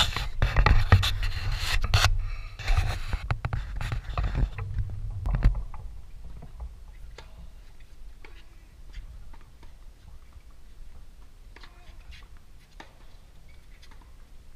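Loud, uneven low rumbling and scraping noise on the microphone for about the first five seconds. Then it is quieter, with faint sharp pops of tennis balls struck by racquets in a singles rally, a second or more apart.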